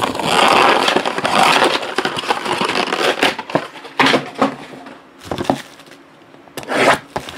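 Card-box packaging being torn open and handled: a rustling, tearing noise for about the first three seconds, then several sharp snaps and clicks.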